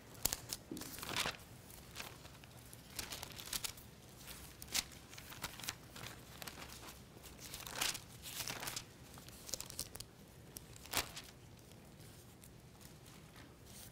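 Thin Bible pages being turned by hand, a string of short, irregular papery rustles and swishes.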